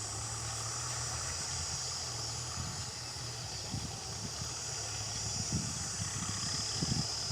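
A steady low engine hum, with a constant high-pitched hiss above it and a few faint thuds.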